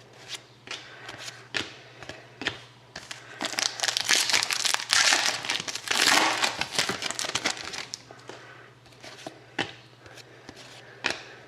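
Foil trading-card pack wrapper being torn open and crinkled, loudest from about three to six and a half seconds in, with scattered clicks of cards being handled.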